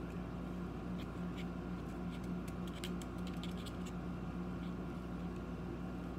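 Faint light clicks and scratches of a plastic pen tip pressing small pebbles down into a little plastic cup, over a steady low hum.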